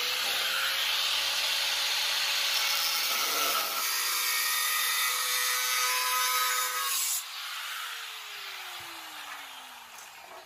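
Angle grinder with a cutting disc running at a steady whine while cutting into a square hollow steel tube. About seven seconds in it is switched off, and the whine falls in pitch as the disc spins down.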